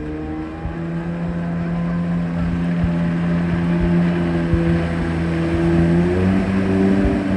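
Yamaha 650 two-stroke twin engine of a 1991 Eckler Jet 'n Cat jet boat running under way, its pitch stepping up about a second in, then holding steady with a slight further rise near the end.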